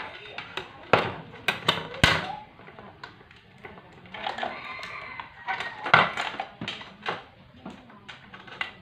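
Knocks and clatter of hardware being handled on a glass tabletop: a wooden box holding a circuit board and a small transformer is set down, and wires with alligator clips are moved about. There are several separate sharp knocks rather than a steady sound.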